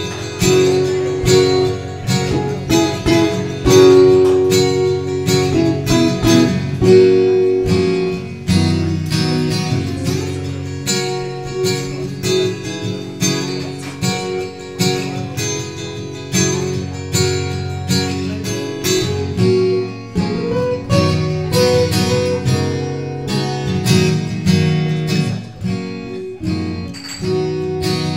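Acoustic guitar playing an instrumental passage without vocals: quick picked notes over strummed chords.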